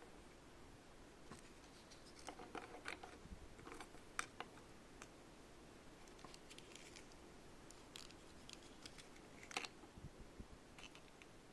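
Faint, irregular clicks and taps of small plastic toy pieces being handled, in clusters with short pauses between.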